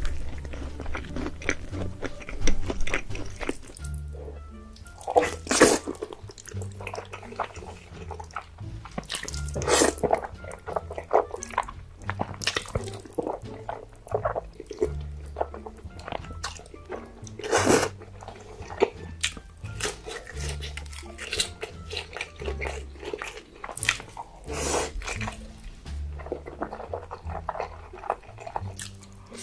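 Close-miked eating sounds: crunchy bites and chewing, with sharp crunches every second or two, over background music with a low bass line.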